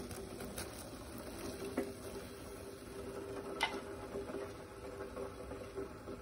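Pot of chicken broth boiling and bubbling as half-cooked fusilli is tipped in, with a few light clicks, the sharpest about three and a half seconds in.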